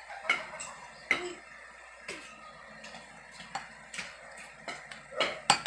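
A utensil knocking and scraping against a stainless steel mixing bowl while stirring chopped onion and pork, in irregular clicks about once a second, with the loudest pair near the end.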